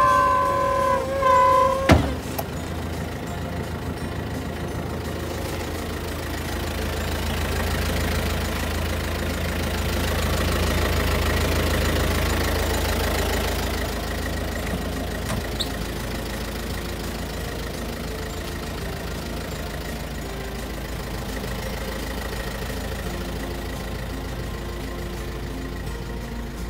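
Truck engine idling with a steady low hum, swelling for several seconds before settling back. In the first two seconds a high wavering tone fades out, ending in a sharp click.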